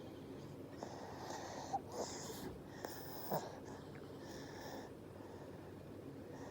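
A baby breathing, with about four audible breaths roughly a second apart and a few small clicks in between.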